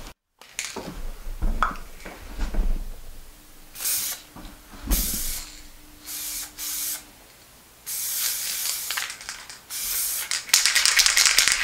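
Paint being sprayed onto a car body in short hissing bursts, about seven of them, the longer ones coming near the end; a few dull knocks in the first seconds.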